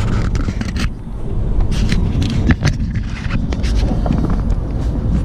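Mercedes-Benz car driving, heard from inside the cabin as a steady low rumble of road and engine noise. Several sharp clicks and knocks in the first couple of seconds come from the camera being handled and remounted.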